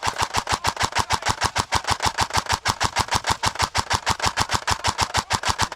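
Airsoft electric rifle firing a long full-auto burst, a steady stream of about ten shots a second that stops near the end.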